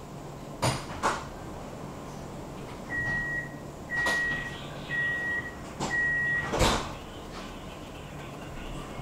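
Tram's door-closing warning: four short high beeps about a second apart, then the doors shutting with a heavy thump. Two sharp clicks come shortly before the beeps.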